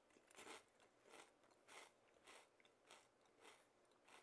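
A person chewing kettle-cooked potato chips: a faint, steady run of crunches, a little under two a second.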